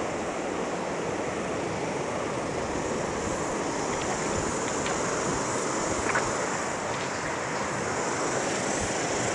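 Steady, even rush of a shallow, clear stream's flowing water.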